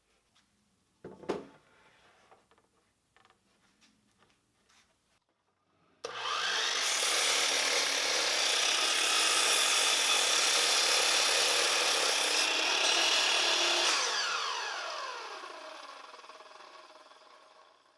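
A few quiet handling sounds and a sharp knock, then an electric power saw switches on, runs loudly for about eight seconds, and after switch-off winds down with a falling whine over about four seconds.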